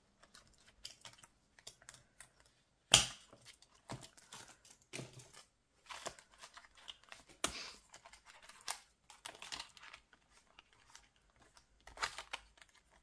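Ring-binder budget folder being handled: plastic zip sleeves crinkling and rustling, with scattered clicks and taps, and one sharp snap about three seconds in.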